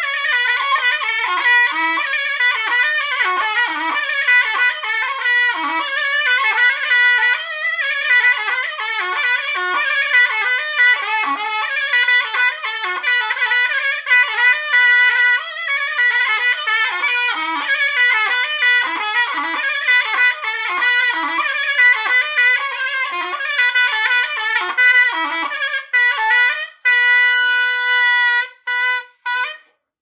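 A zurna, the Turkish double-reed shawm, played solo without drum: a fast, heavily ornamented folk melody, ending on one long held note near the end before it stops.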